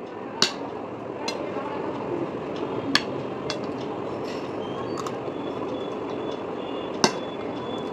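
A metal spoon clinking and scraping against a plate as food is scooped, a few sharp clinks spread across several seconds, over a steady background hiss.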